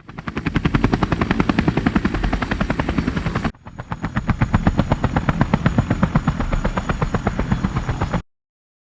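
Military helicopter rotor blades chopping in a fast, even beat, with a thin high steady whine on top. The sound breaks off suddenly a third of the way through, returns, and cuts off abruptly near the end.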